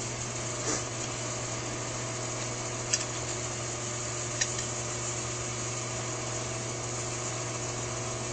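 Steady low hum of the room, with a few faint, short clicks as a thin wire is worked through the drilled holes of two carburetor venturi screws.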